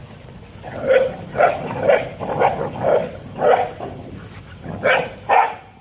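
A dog barking about eight times: a run of six barks about two a second, a short pause, then two more near the end.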